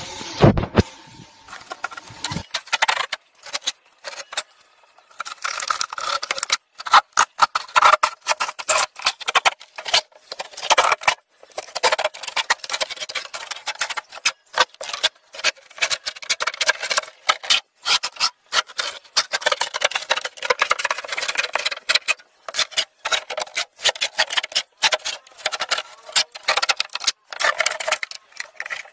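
Rapid, irregular clattering and scraping as a chest freezer's cabinet is pulled apart, its foam insulation and sheet-metal shell torn from the inner liner. The sound is thin, with almost no low end, and opens with a single thump.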